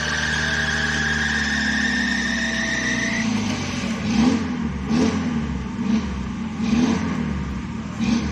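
Small off-road Suzuki Jimny running under load, with a high whine slowly rising in pitch for the first few seconds. From about halfway in, the engine surges again and again, roughly once a second.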